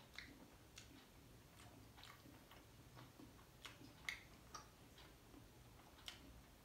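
Faint, irregular clicks and soft crunches of someone chewing a mouthful of paratha, close to the microphone, the loudest click about four seconds in.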